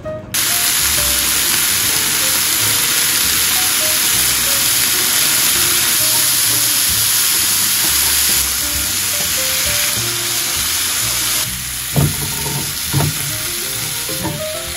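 Bean sprouts sizzling loudly as they are stir-fried in a hot nonstick frying pan and stirred with wooden chopsticks. A couple of knocks near the end.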